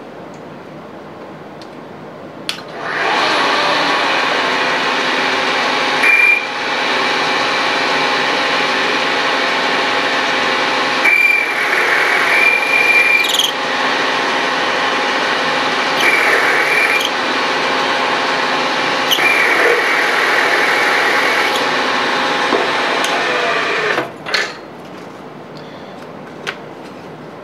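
Milling machine spindle starts about two and a half seconds in and runs steadily while an end mill held in a drill chuck takes small, light countersinking cuts, with several brief high-pitched whines as the cutter works. The spindle shuts off near the end, followed by a few faint clicks.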